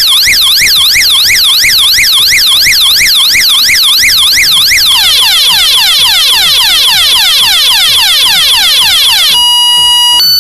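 12-volt electronic siren horn of a homemade fire alarm, set off when flame heats its tube-light starter, sounding loudly. It cycles through its tones: a fast up-and-down warble, about three a second, changing about halfway to quick repeated falling sweeps, and near the end to two steady tones alternating.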